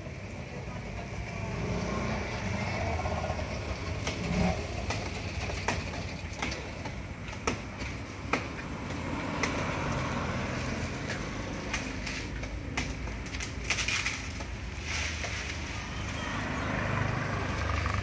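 Road traffic running by in a steady low rumble, with about ten irregular sharp knocks through the middle and voices in the background.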